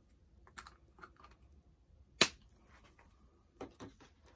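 A plastic toy baby bottle being handled and put down: a few light clicks, one sharp clack about halfway, and two smaller knocks near the end.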